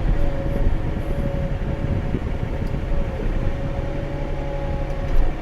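Engine running steadily at a constant speed, with a steady mid-pitched whine over a low rumble.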